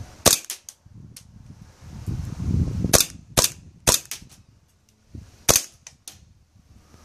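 Airsoft pistol firing about five single shots: one near the start, three in quick succession around three to four seconds in, and one more past five seconds. Fainter ticks follow some of the shots, the BBs striking the electronic flip target.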